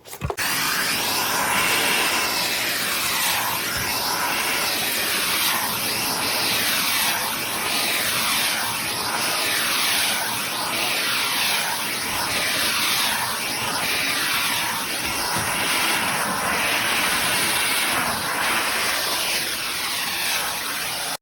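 Miele Classic C1 bagged canister vacuum cleaner running steadily at full suction: a loud rush of air with a steady high whine through it.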